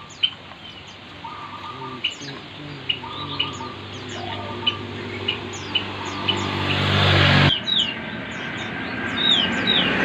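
Caged market birds calling: short, high, falling chirps repeat about once or twice a second, mixed with a few brief cooing notes from the doves. A low drone grows louder underneath and cuts off abruptly about seven and a half seconds in.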